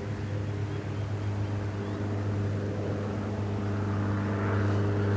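A steady low motor drone holding one pitch, growing slightly louder toward the end.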